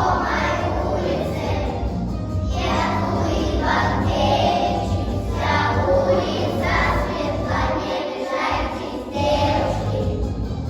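A group of young children singing together in chorus over music, in phrases with short breaks between them.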